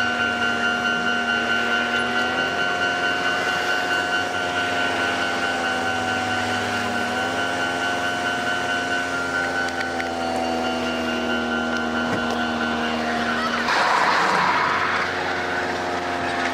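A vehicle engine idling steadily, its pitch shifting slightly a couple of times, with a steady high tone over it that stops about 13 seconds in. About 14 seconds in there is a short burst of hissing.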